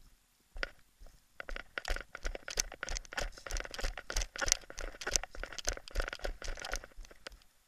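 Dry undergrowth crunching, crackling and snapping as something pushes through the brush, a dense irregular run of sharp cracks over soft thumps that starts about half a second in and stops near the end.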